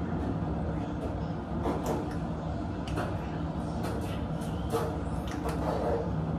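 Steady low background hum with several short clicks and hisses as a glass perfume bottle is handled, sprayed and set down on a bathroom counter.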